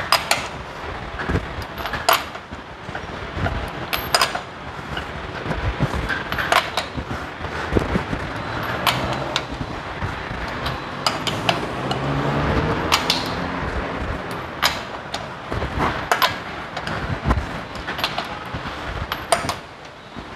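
A wrench on the wheel nuts as a refitted wheel is tightened: sharp clicks and knocks at irregular intervals of a second or two.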